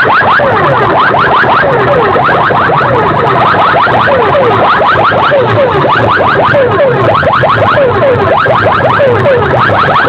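Several DJ sound-box sets blasting at once, their overlapping electronic siren-like effects making a cacophony. There are many quick rising whoops a second, falling sweeps lower down, and a pulsing bass beneath.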